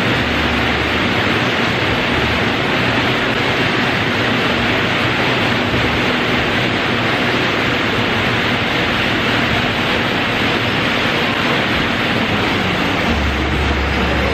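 Several air bikes (fan bikes) ridden flat out, their fan wheels making a steady rushing whoosh.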